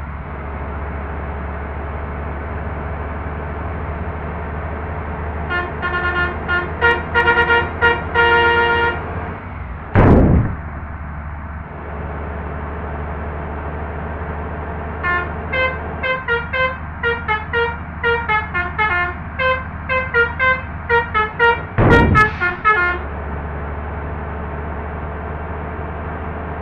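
Indonesian bus telolet horn playing its multi-note musical tune, first in a short burst and then in a longer run of changing notes, over the steady low rumble of the bus engine. Twice there is a short, loud blast, the loudest sound in the clip.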